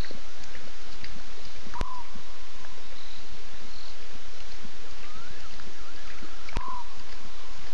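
Night ambience at a bush waterhole: a steady chorus hiss of frogs and insects, broken twice by a short sharp call about five seconds apart, with faint bird chirps.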